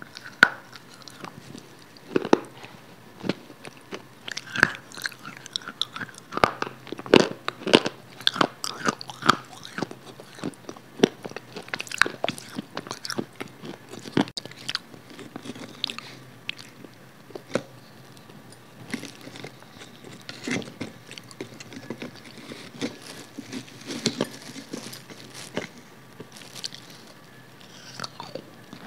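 Close-miked eating: biting and chewing pieces of a white block of food dipped in red sauce, with many sharp mouth clicks and smacks, dense for the first twelve seconds or so and sparser after that.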